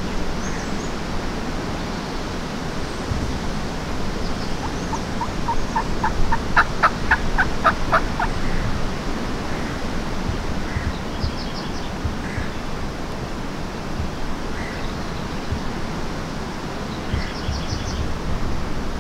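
Wild turkey calling: a quick run of about fifteen notes starting about five seconds in, growing louder for a few seconds. A few faint high bird chirps come later.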